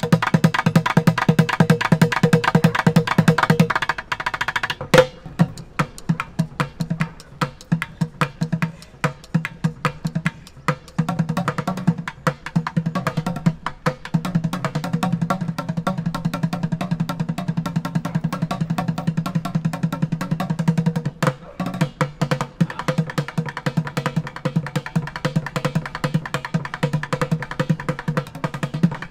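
Bucket drum played fast with wooden drumsticks: a dense, driving stream of strokes over the drum's ringing tone. The pattern changes about four seconds in, and there is a brief break around three quarters of the way through.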